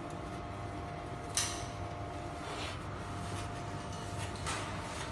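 A hand rubbing across and handling a welded sheet-steel ring, with one sharp knock about a second and a half in and softer brushing rustles later, over a steady faint hum.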